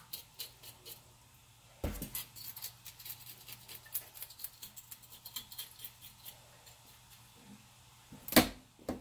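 Light clicks and scrapes of a whole red snapper being trimmed with kitchen scissors and cleaned of leftover scales in a stainless steel sink. A sharper knock comes about two seconds in, and the loudest knock comes near the end.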